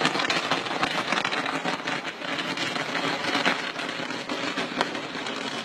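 Firework burning with a dense, continuous crackle of many rapid small pops.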